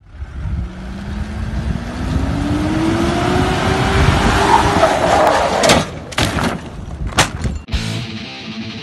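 SUV engine revving, its pitch climbing steadily for about five seconds, with tyre noise on loose dirt as it turns hard. A few sharp loud hits follow about six to seven seconds in.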